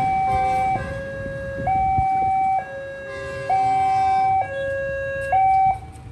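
Railway level-crossing warning alarm sounding a two-tone high-low signal, each tone held just under a second. It cuts off abruptly near the end as the barrier goes up after the train has passed, ending the warning.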